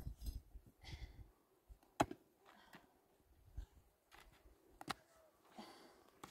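A few faint, scattered sharp clicks and knocks, with a low rumble in the first second or so.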